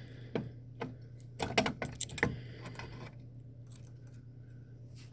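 A quick run of light clicks and taps, like small objects being handled, over the first three seconds, then only a faint steady low hum.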